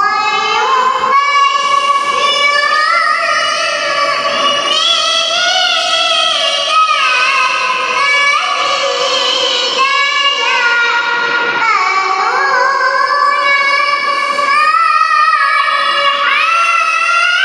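A young girl's high voice chanting the Qur'an in melodic tilawah style: long, held, ornamented notes with pitch turns and bends, in one unbroken phrase.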